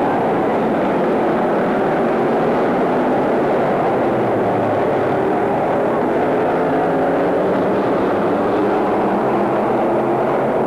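A field of oval-track stock cars running laps together, their engines blending into one steady, dense drone that does not let up.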